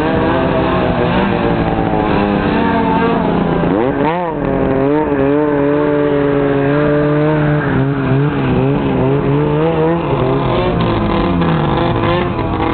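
Snowmobile engine running hard. Its pitch rises and falls quickly about four seconds in, holds steady and high, then drops away about ten seconds in.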